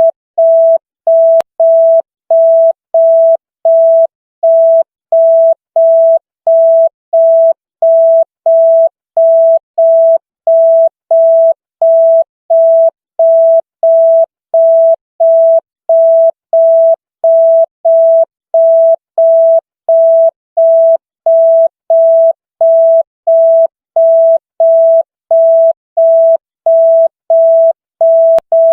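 Electronic signal beep: a single pure mid-pitched tone switching on and off about one and a half times a second, in the manner of a telephone busy tone.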